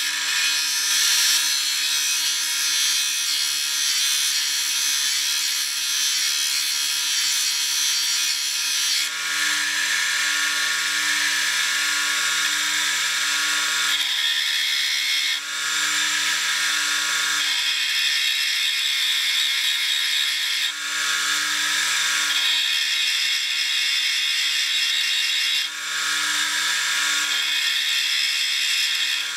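Small electric sharpener's motor running steadily while the brazed tip of a lathe parting tool is ground on its diamond disc. The grinding hiss is strong for the first several seconds, then eases and swells again every few seconds as the tool is pressed on and eased off.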